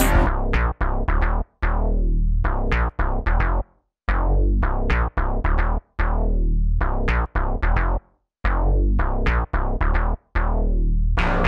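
Electronic background music: synthesizer notes that strike and fade quickly over a heavy bass and a drum-machine beat, cut by short sudden stops about every two seconds.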